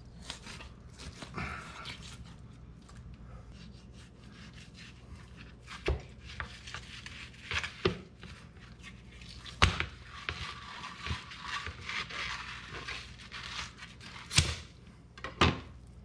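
Fillet knife slicing and scraping through a red grouper on a plastic cutting board while filleting and skinning it, with a few sharp knocks of knife and fish against the board.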